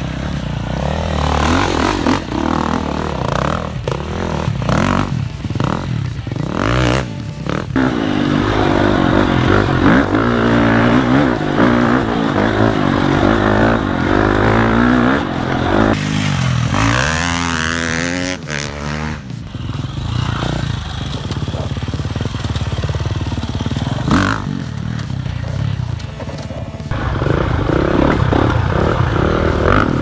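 Dirt bike engines revving on trail rides, the engine note rising and falling with the throttle. The sound changes abruptly several times as the shots cut.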